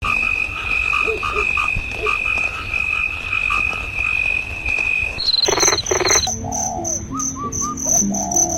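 Frogs croaking and insects trilling in a steady, pulsing chorus. About five seconds in it changes abruptly to two loud croaks, then a higher, steady insect trill with short chirping calls.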